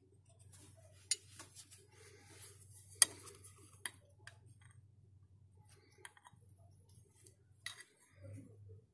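Handling noises from a brake caliper as a plastic guide-pin liner is pushed into its rubber bushing: a few sharp clicks and light clinks, the loudest about three seconds in, over a faint low hum.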